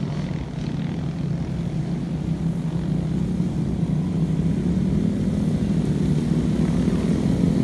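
A group of small motorcycles and scooters running as they ride along a dirt track, a steady engine drone that grows gradually louder as they approach.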